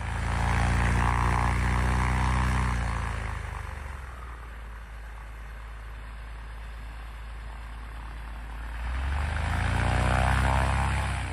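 Propeller-driven biplane, a Fokker D.VII replica powered by a 200 hp Ranger 6-440 inverted inline six-cylinder engine, passing overhead. The engine is loud at first, fades after about three seconds as the plane moves away, and grows loud again about nine seconds in as it comes back past.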